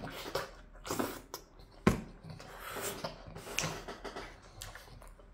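A man chewing pizza close to the microphone: soft mouth and chewing sounds with a few sharp clicks, the loudest about two seconds in.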